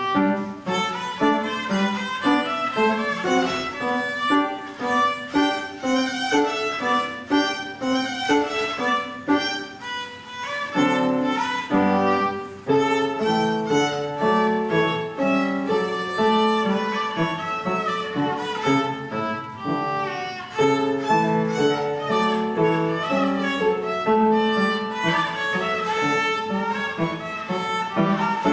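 A violin and an upright piano playing a duet: a child's violin bowing the melody in long held notes over a moving piano accompaniment.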